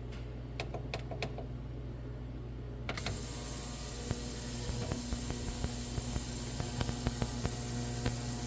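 Ultrasonic cleaner running: a steady electrical hum, with a few light clicks, then about three seconds in a loud even hiss with scattered crackling ticks comes on as the ultrasonics work on the soaking parts.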